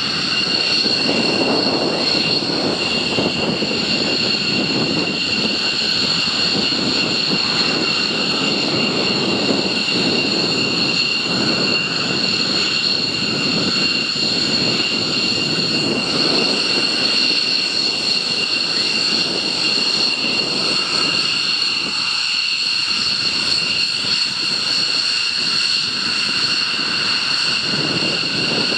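F-15 Eagle fighters taxiing: their Pratt & Whitney F100 turbofans give a steady high-pitched whine over a rough, continuous rumble.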